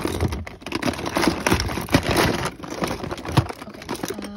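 Hands rummaging through a pile of fidget toys, with many quick, irregular small clicks, knocks and rustles of plastic and packaging.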